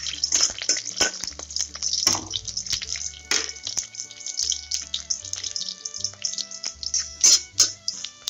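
Chopped garlic sizzling and crackling in hot oil in a wok, with sharp spitting pops, a couple of them loudest about seven seconds in. The garlic is being fried until it turns lightly golden-red. Soft background music plays underneath.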